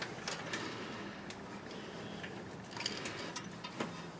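A few faint, irregular clicks and light metallic taps over quiet background noise, from tools being handled while the camber bolt is adjusted.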